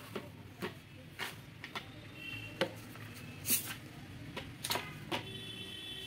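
Hard plastic clicks and knocks from a Prestige wet-and-dry vacuum cleaner's extension pipe and floor brush being handled and set down on a counter, about eight of them, the loudest about midway.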